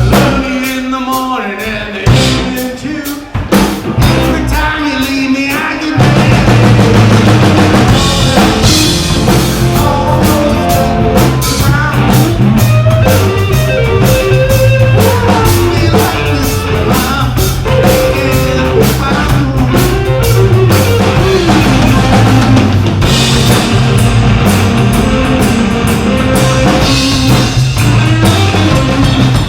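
A rock band playing live on drum kit and guitar. For the first few seconds it plays short, separated stop-time hits, then about six seconds in the full band comes in and keeps playing steadily and loudly.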